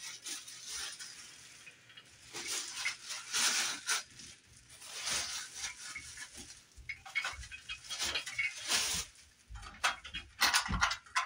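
Clear plastic packaging crinkling and rustling in irregular bursts, with a few sharp clicks, as a light fixture is handled and unpacked.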